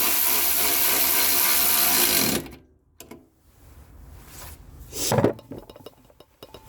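A cordless power tool running steadily for about two seconds on a 17 mm socket, then stopping. About five seconds in, a single knock.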